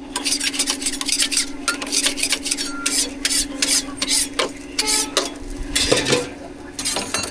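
Metal cooking utensils clinking and scraping against a pan or griddle in quick, irregular strokes, over a steady hum.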